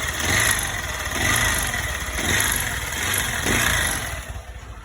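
Single-cylinder engine of a Honda CG 160 Start motorcycle running, rising and falling about once a second, then quietening near the end. It has a persistent abnormal mechanical noise after running very low on oil, which the mechanic thinks could be something in the cylinder.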